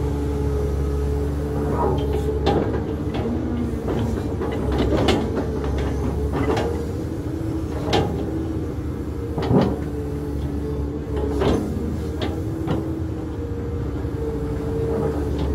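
Cat 320 excavator's diesel engine running steadily under hydraulic load, while the wide grading bucket scrapes across the soil slope. Sharp clanks and knocks come every second or two, some louder than others, as the bucket and its linkage work the dirt.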